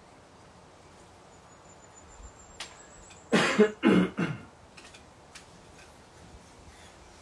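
A man coughs three times in quick succession, a little over three seconds in.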